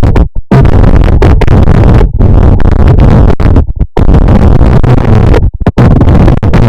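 Deliberately overamplified, clipped audio: a dense distorted noise at maximum loudness with a heavy low end, cutting out abruptly for a split second several times.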